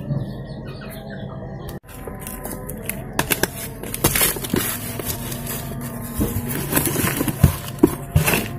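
Hands working a mimosa plant's roots into a pot of soil: rustling and crackling with many small sharp clicks, busier from about three seconds in.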